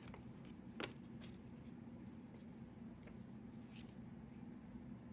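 Near-quiet room tone with a steady low hum and a few faint light clicks, one sharper click about a second in, as small objects are handled.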